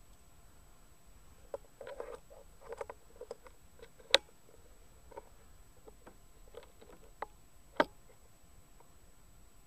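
Rats scurrying and rustling in dry straw, with scattered small ticks and scrapes. Two sharp, much louder clicks come about four and eight seconds in.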